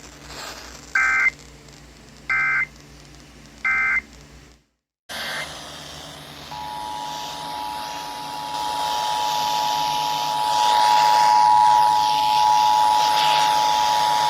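Emergency Alert System data signal: three short data bursts about a second and a half apart, the end-of-message code. After a brief cut to silence comes radio hiss, and about six and a half seconds in the two-tone EAS attention signal starts and holds steady.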